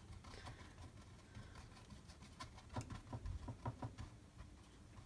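Faint, irregular taps and scrapes of a paintbrush dabbing acrylic paint onto a stretched canvas to give it texture. The taps bunch together a little past halfway.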